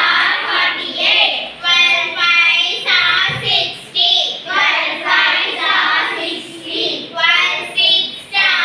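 Children's voices chanting a multiplication table aloud in a sing-song rhythm, phrase after phrase without a break.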